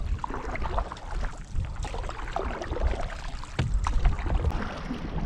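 Canoe being paddled: the wooden paddle swishing through the water and water lapping against the hull, with a single knock about three and a half seconds in.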